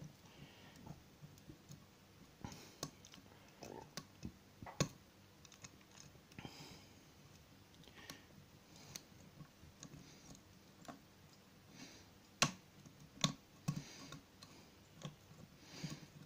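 Lock-picking tools working in a shutter padlock's keyway against a wiper-insert tension wrench: irregular small metallic clicks and scrapes, with a few sharper clicks about five seconds in and again near twelve and thirteen seconds in, as the lock is picked open.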